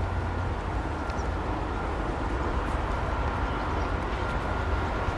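Steady low rumble of city traffic, with a faint steady high tone running through it.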